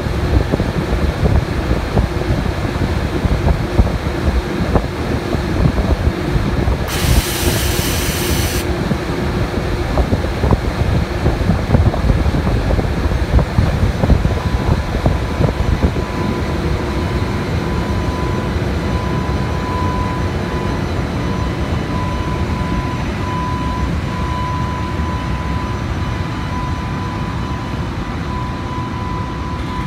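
JR Freight EH500 twin-section electric locomotive moving slowly past at close range, its running gear rumbling. A short burst of hiss comes about seven seconds in, and a steady high whine joins about halfway and holds.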